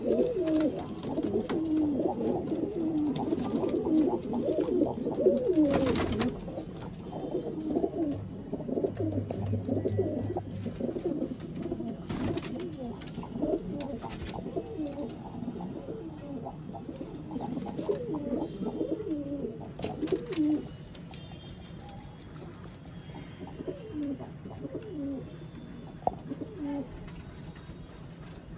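A loft full of domestic pigeons cooing, many calls overlapping, thickest at the start and thinning out after about twenty seconds. A few sharp clicks are also heard.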